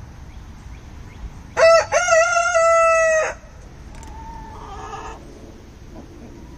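A rooster crows once, loud: a couple of short notes running into one long held note. A fainter call follows about a second later.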